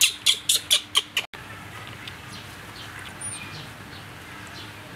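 A baby macaque giving a quick run of short, shrill cries, about five a second, as it reaches for its milk bottle. The cries cut off suddenly just over a second in, leaving faint outdoor background with a single high bird chirp.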